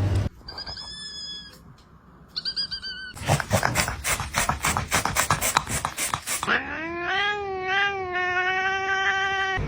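Domestic cat vocalising: a few short high chirps, then a rapid stuttering chatter lasting about three seconds, then a long drawn-out yowl that rises and holds.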